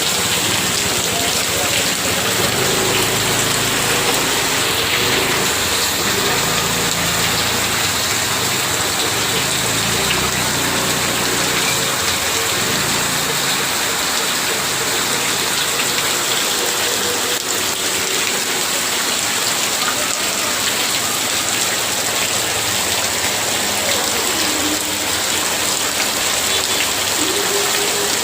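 Heavy rain pouring steadily on a tin-sheet roof, a dense, even hiss without letup.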